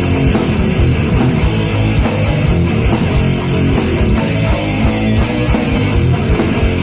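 Heavy rock music played loud and steady by a band with electric guitars.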